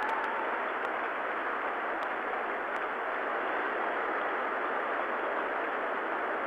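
Steady crowd noise of a packed stadium, an even wash of cheering and clapping with no single sound standing out.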